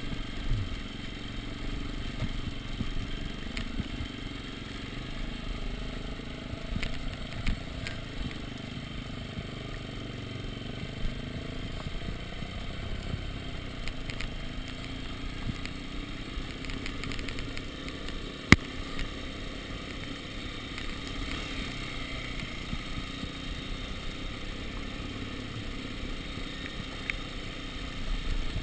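Dirt bike engine running steadily as the bike rolls down a rough cobblestone track, with clattering over the stones. There is one sharp knock about two-thirds of the way through.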